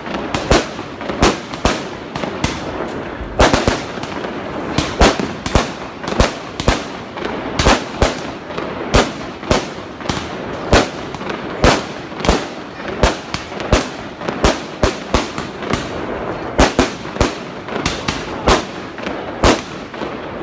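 A Royale 60 multi-shot firework cake firing a rapid volley of aerial shots, with a sharp bang about twice a second over a continuous crackle of bursting stars.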